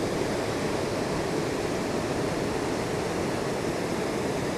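Steady rush of fast river water below a dam spillway, an even noise with no breaks.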